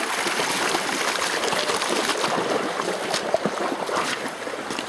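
River water running over a shingle bed, a steady rushing noise, with a few short clicks about three seconds in.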